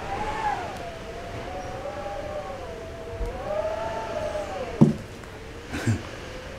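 A siren wailing in a slow, unbroken rise and fall that cuts off abruptly about five seconds in, together with a sharp knock; a shorter thump follows about a second later.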